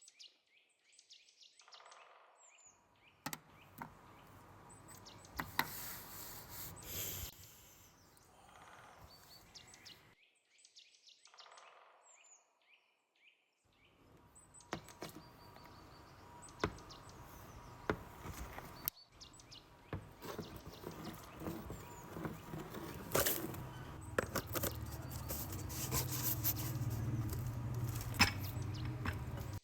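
Outdoor food-preparation sounds: birds chirping, with knocks, clatter and scattered sharp clicks of hand tools and wood, and a steady low rumble in the last several seconds.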